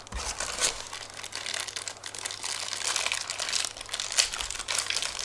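Clear plastic bags of small camera mounts crinkling as hands pick them up and sort through them, an irregular run of crackles.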